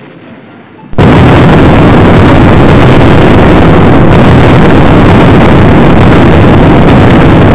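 Sound effect of a sailing ship's wooden hull rushing through the water: a loud, steady rushing noise with a deep rumble that starts abruptly about a second in.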